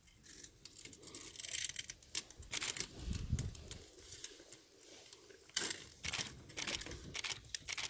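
An African elephant pulling and ripping up dry grass with its trunk while feeding: irregular short bursts of tearing and rustling, with a dull low thump about three seconds in.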